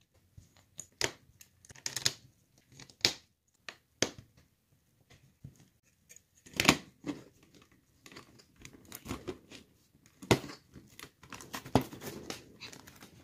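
LEGO bricks and plates being handled and pressed together: irregular clicks and short clatters of plastic on plastic.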